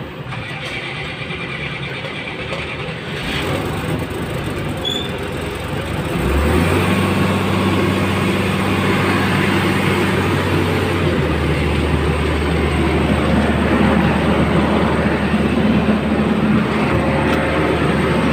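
Excavator's diesel engine running, just started on a newly fitted starter. About six seconds in its note steps up into a louder, steady low hum, which then holds.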